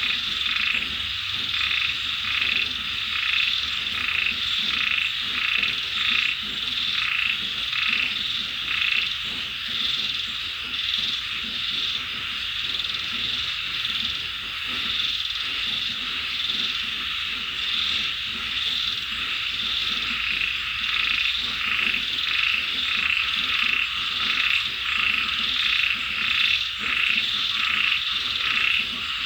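Chorus of frogs calling: short croaks repeat about twice a second over a steady high trill.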